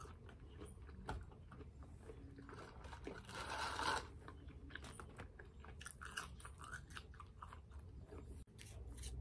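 A person chewing a breaded spicy chicken nugget close to the microphone: many faint crunches and mouth clicks. A short rustling hiss comes about three seconds in.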